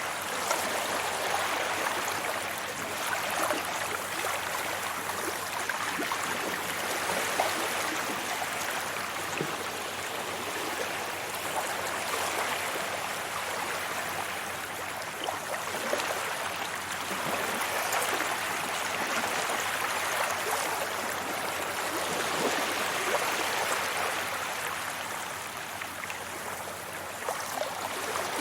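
Sea waves washing onto a beach: a continuous rushing hiss that swells and eases every several seconds, with fine crackling from the breaking surf.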